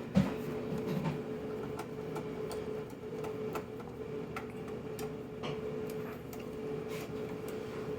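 Scattered light clicks and taps at irregular intervals over a steady faint hum.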